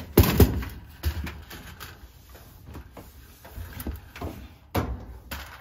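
Sheet-metal knocks and scraping as the dryer's heating coil assembly is worked loose and handled: a quick cluster of clunks just after the start, another about a second in, and one more near the end.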